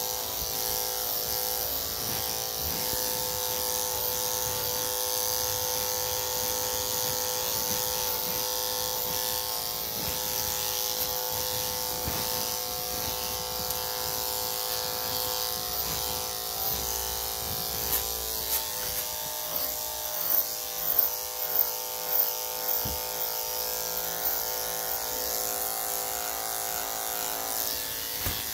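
Corded electric dog clippers fitted with a #3 3/4 blade running with a steady hum as they clip a Shih Tzu's coat. A run of several brief knocks comes about two-thirds of the way through.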